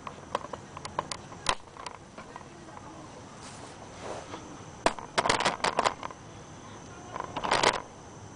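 Camera handling noise: scattered clicks and knocks, with two short bursts of rattling about five and seven and a half seconds in.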